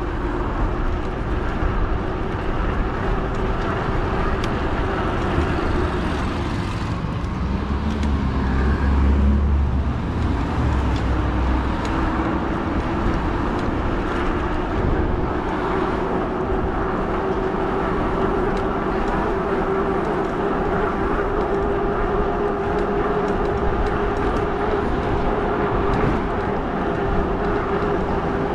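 Fat-tire e-bike underway with wind and road noise and a steady motor whine. The whine drops and climbs back up about eight to eleven seconds in, together with a low rumble.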